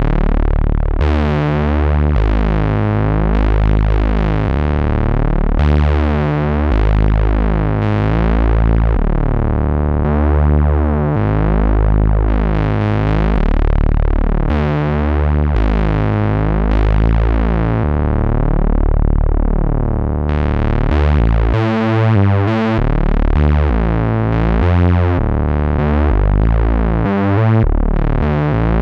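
Cherry Audio LowDown software synthesizer, an emulation of the Moog Taurus bass pedals, playing a deep bass line of long sustained notes with the decay set long. From about 21 seconds in the notes change faster and shorter.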